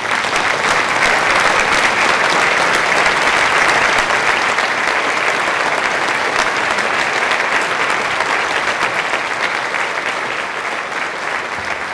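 Audience applauding, a dense, steady clapping of many hands that eases a little near the end.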